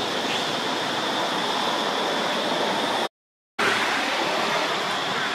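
Steady outdoor background hiss, broken by a sudden half-second gap of complete silence about three seconds in.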